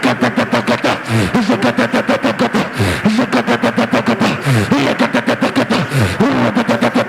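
Fast, steady hand clapping, about six claps a second, under a voice praying aloud with no clear words.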